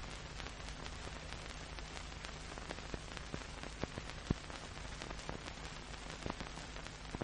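Steady hiss with faint low hum and scattered sharp crackling clicks: the surface noise of an old film soundtrack, with no other sound on it.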